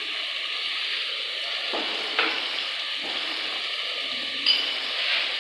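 Potato chunks frying in ghee and tomato-onion masala in a pot, sizzling steadily. There are short louder spurts about two seconds in and again near the end.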